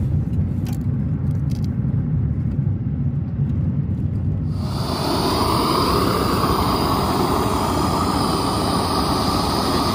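Steady low rumble of a moving vehicle; about halfway through, a loud rushing hiss suddenly joins and holds steady.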